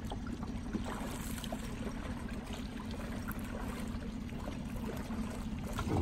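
Water lapping and trickling against an inflatable dinghy's tube, with a few faint small splashes over a steady low rumble.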